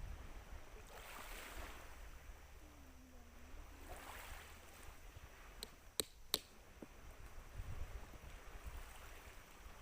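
Sea waves washing in, with wind rumbling on the microphone; about six seconds in, two sharp clicks come close together.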